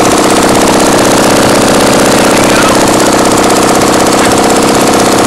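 Fiat engine running steadily and loudly, with a fast, even beat, its output shaft spinning under power.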